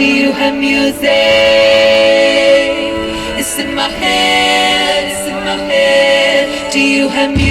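Singing with music: voices holding long notes in phrases that break every second or two.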